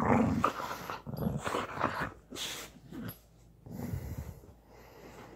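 A dog right at the microphone making short, breathy, low grumbling sounds in about four bursts, then quieter near the end.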